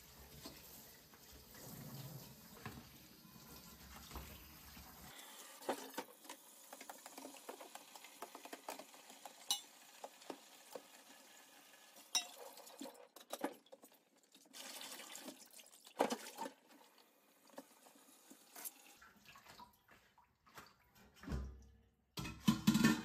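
Kitchen tap running into a stainless steel sink during dishwashing, with scattered clinks and knocks of dishes and glassware, and a louder clatter near the end.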